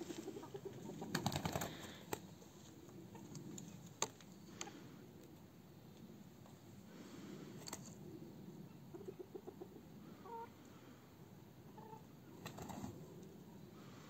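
Domestic chickens clucking quietly, with a quick run of clucks about two-thirds of the way through, a few short calls, and several sharp clicks.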